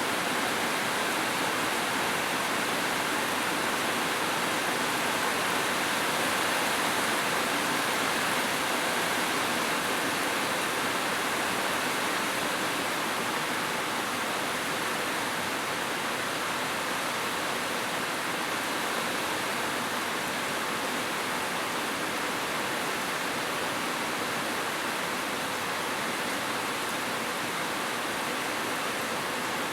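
Rain falling steadily: an even, unbroken hiss with no separate drops or pauses standing out.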